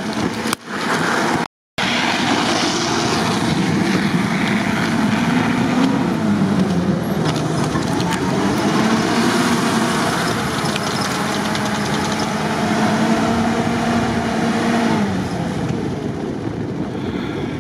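UAZ-469 engine working hard through deep snow, its pitch rising and falling as the throttle is worked, over a steady rushing noise. The sound cuts out for a moment about a second and a half in.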